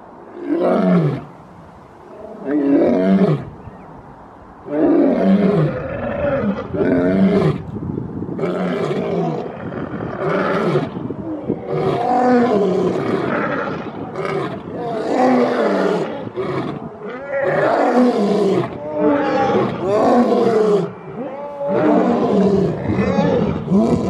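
Two male lions roaring. Two single roars come about two seconds apart, then from about five seconds in a long run of overlapping roars follows, each falling in pitch.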